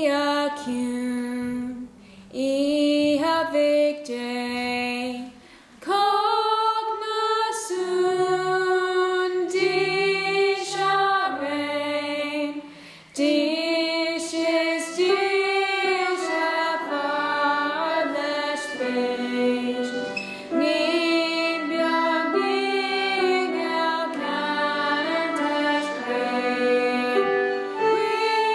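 A young female voice sings a Christmas song in phrases with short breaks between them. More voices and instruments join from about the middle, building to a fuller layered sound.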